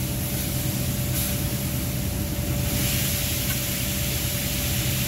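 Chopped steak sizzling on a hot flat-top griddle, a steady hiss over a steady low machine hum.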